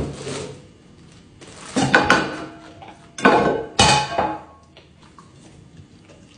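A cow nosing and licking at a plate and food on a wooden table. The plate clatters and scrapes in about four short bursts, the loudest between two and four seconds in.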